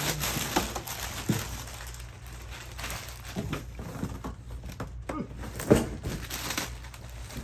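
Packaging being handled during an unboxing: plastic and cardboard rustling and crinkling, with scattered knocks and thumps. The sharpest knock comes about three-quarters of the way through.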